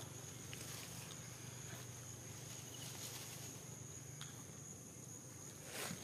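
Outdoor ambience: a steady high insect drone, with a few faint ticks and a short rustle of vegetation near the end.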